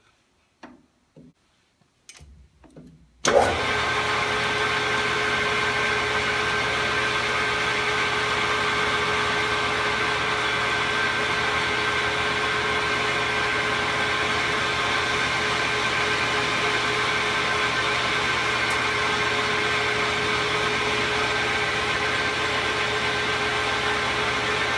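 A few faint clicks, then a metal lathe starts abruptly about three seconds in and runs steadily with a constant whine.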